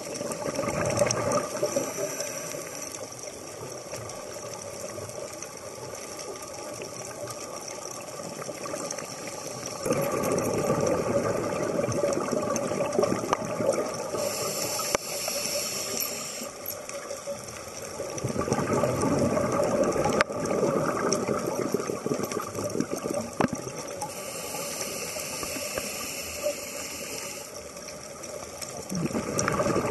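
Scuba diver breathing through a regulator underwater: long bursts of exhaled bubbles crackling and gurgling, alternating with shorter hisses of inhalation, over several slow breaths.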